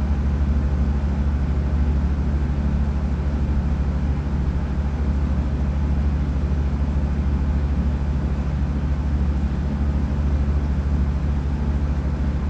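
Steady low machine hum that runs unchanged, with no separate knocks or clicks.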